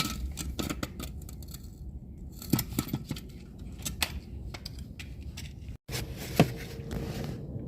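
Irregular small metallic clicks and light knocks of hand tools and parts being handled while a replacement alternator is fitted, broken by a very brief dropout about three-quarters of the way through.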